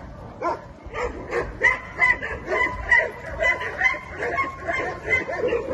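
Dogs barking in quick repeated short barks, about three a second, with a thin steady high whine underneath from about a second and a half in.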